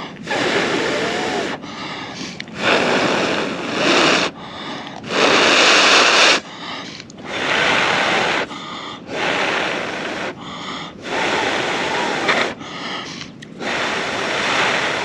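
A person blowing long, steady breaths onto a glowing char-cloth ember in tinder to coax it into flame. There are about eight blows, one every second and a half to two seconds, with short pauses for breath between them.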